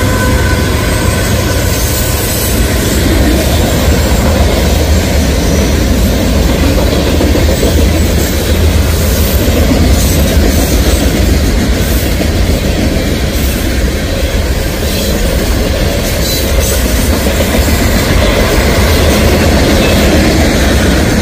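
Freight train's gravel hopper cars rolling past: a loud, steady rumble of steel wheels on the rails.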